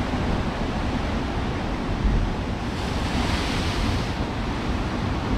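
Sea waves breaking on the rocks below, a surge swelling about three seconds in and fading a second later, with wind rumbling on the microphone. The surf is strong as the tide comes in.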